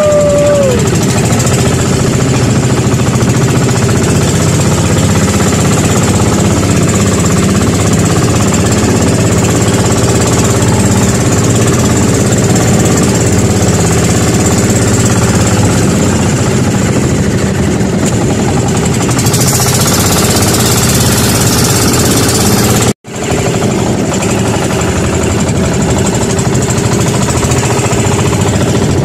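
Engine of a motorized outrigger boat (bangka) running steadily under way, a loud, continuous knocking drone. The sound breaks off for an instant about three-quarters of the way through.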